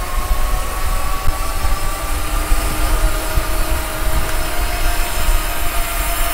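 Wind buffeting the microphone of an action camera on a moving bicycle, with a steady, droning hum underneath.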